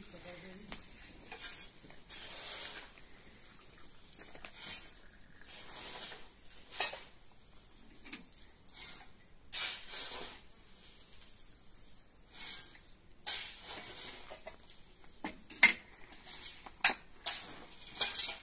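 Dishes and utensils clinking and scraping at irregular intervals, with a few sharper knocks near the end.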